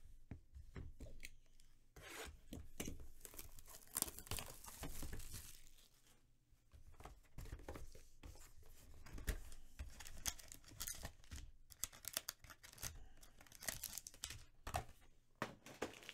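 A cardboard XR football card hobby box being torn open and its foil-wrapped packs handled: irregular tearing and scraping with crinkling and small clicks.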